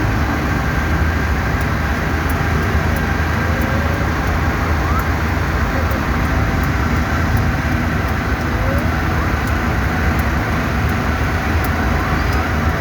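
Steady low rumble of a car driving, with road and engine noise throughout.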